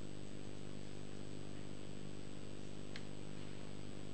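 Steady electrical hum and hiss in a pause between spoken lines, with no voice, and one faint short chirp about three seconds in.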